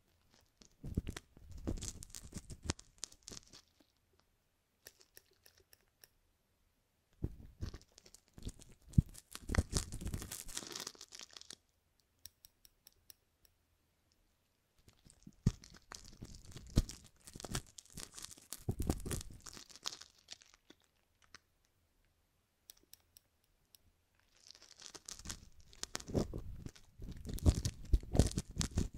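Metal tweezers scraping and picking inside the silicone ear of a binaural microphone: close, crackling and crunching ear-cleaning sounds. They come in four bursts of a few seconds each, with quiet pauses between.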